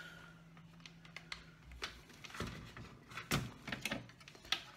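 A few light clicks and knocks of handling as an LCD TV's power supply circuit board is lifted and turned round, the loudest a little over three seconds in.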